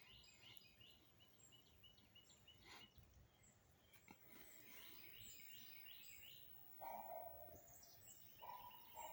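Faint birdsong: a bird repeating short high chirps. About two-thirds of the way in, dogs start barking in the distance, twice.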